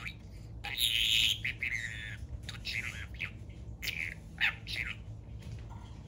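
Pet budgerigar chattering in a string of short chirps and squawks, the loudest about a second in, tailing off near the end.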